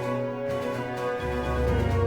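Background music with held notes and a steady bass line.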